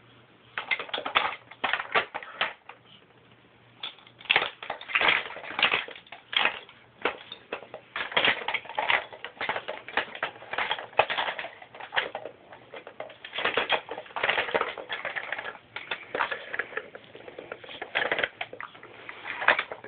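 Hard plastic toy bus and its small plastic figures being handled, a rapid, irregular run of clatters, taps and rattles with brief pauses.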